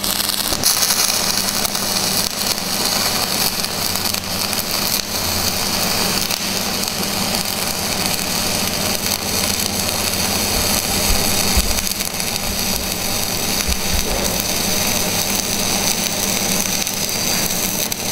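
MAG (metal active gas) welding arc running a bead along a steel box-section joint: a steady hiss with a low hum underneath.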